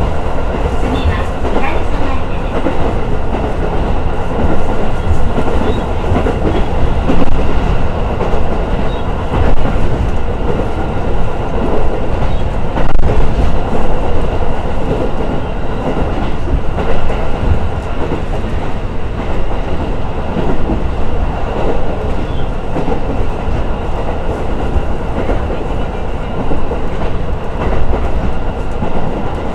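KiHa E130 series diesel railcar heard from inside the passenger car while running, a steady, continuous noise of engine and wheels on the rails.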